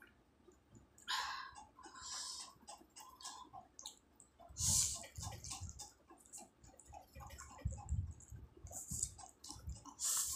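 A person slurping and chewing instant noodles: several short, wet slurps, the loudest about five seconds in, with chewing between them.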